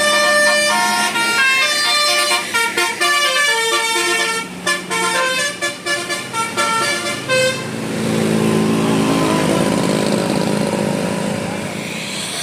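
A tour bus's 'telolet Basuri' musical horn playing a quick melody of short notes. It stops about seven seconds in and gives way to a steady vehicle rumble.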